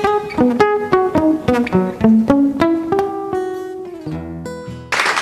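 Acoustic guitars playing a song's closing instrumental phrase: a picked single-note melody climbing step by step at about three notes a second, then a low final chord ringing out. Applause breaks out right at the end.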